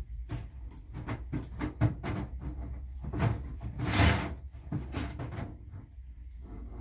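Cordless drill with a hole saw cutting into a metal bus ceiling in short, uneven runs of grinding and scraping. A thin high whine stops about three seconds in, and a loud burst comes about four seconds in.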